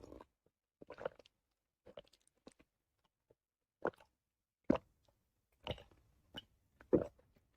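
A person drinking water in a series of gulps, about eight separate swallows at roughly one a second, the loudest ones near the middle and end.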